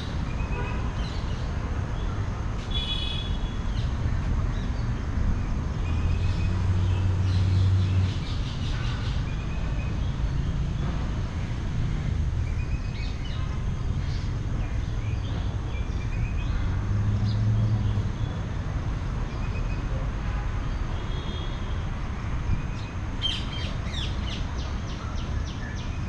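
Scattered bird chirps and short calls from birds in the trees over a steady low rumble, which swells twice; near the end, a quick run of sharp repeated notes.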